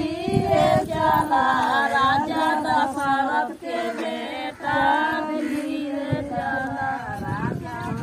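A group of women singing a wedding folk song together, several voices on one melody with the pitch gliding from phrase to phrase.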